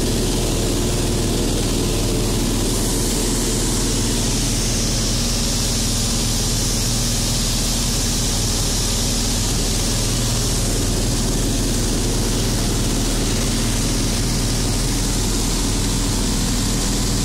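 Steady drone of a single-engine light propeller aircraft's engine and the rush of air over the airframe, heard inside the cabin in flight. The airflow hiss grows louder for several seconds in the middle.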